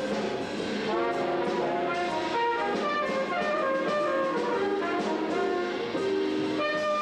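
Live jazz combo playing: a trumpet carries the melody over electric keyboard and upright bass.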